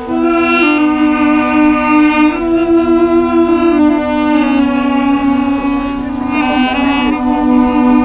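Several duduks playing together: a slow melody moving over a low drone note held steady underneath.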